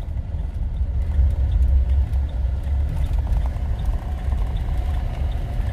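Steady low rumble of a car driving on a highway, heard from inside the cabin: road and engine noise.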